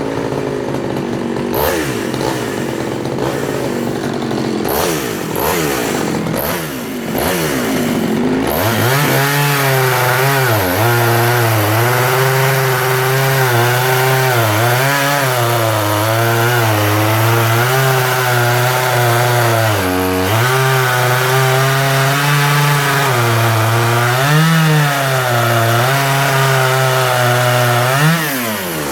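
Efco 134 top-handle two-stroke chainsaw revved up and down for the first eight seconds or so, then held at full throttle cutting wood, its pitch wavering and dipping as the chain takes load, and let off near the end. Its mixture is richened slightly to stop it running lean.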